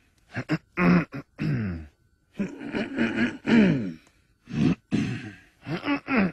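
Men's voices clearing their throats in turn, a quick string of gruff harrumphs, each one dropping in pitch.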